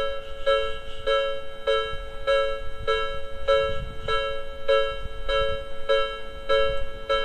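Japanese railway level-crossing alarm ringing: an electronic bell tone struck over and over, a little under two strokes a second.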